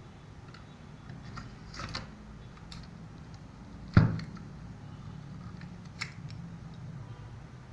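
Knives being lifted out of and slotted back into a carved wooden knife stand: light clicks and scrapes of metal and brass-ferruled handles against wood, with one loud knock about four seconds in.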